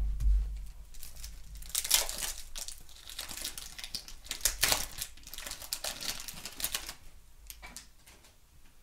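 Wax paper wrapper of a 1991 Topps baseball card pack being torn open and crinkled by hand: a low bump at the start, then a run of irregular crackling rustles that die down near the end.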